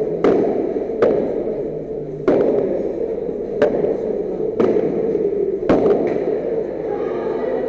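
Padel rally: the ball is struck by rackets and bounces off the court and walls, about six sharp knocks roughly a second apart, ringing in a reverberant indoor hall.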